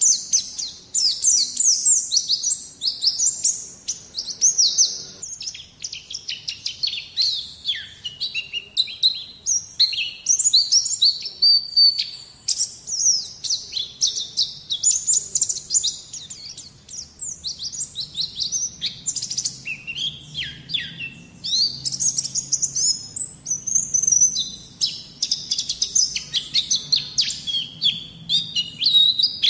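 White-eye (pleci) song played as a masteran training track: a rapid, unbroken stream of high twittering chirps and short trills.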